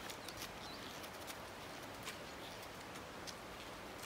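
Footsteps on snow, a scatter of irregular soft crunches and clicks over a faint steady hiss.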